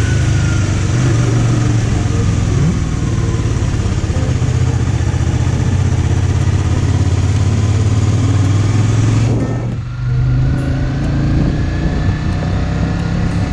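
Motorcycle engine running steadily under way, heard from the bike with a rush of wind and road noise over it. The engine sound drops away briefly about ten seconds in, then picks up again.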